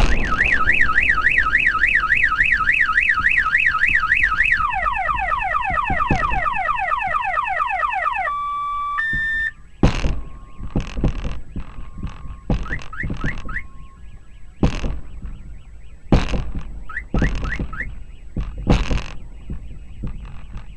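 Car alarm set off by the meteor's sonic boom: a fast warbling siren, then rapid rising whoops, then a few seconds of steady alternating tones. After about ten seconds the loud cycle stops, leaving fainter alarm chirps broken by a series of sharp thumps.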